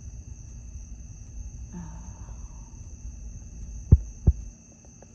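Night insects chirring, a steady high trill, over a low rumble. Two sharp knocks come close together about four seconds in and are the loudest sounds; the rumble drops away after them.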